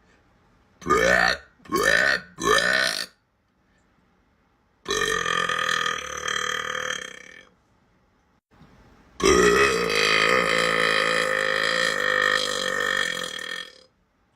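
A girl belching: three short burps in quick succession, then a long drawn-out burp, and near the end a longer one still.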